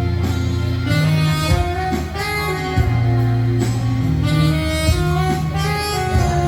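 Saxophone playing a slow melody in long held notes over a backing track with a bass line.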